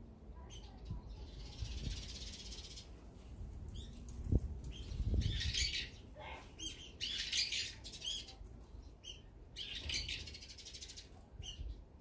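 Small songbirds giving sharp, repeated chirps, with wing flutters as they fly in and out; the calls come thickest around the middle.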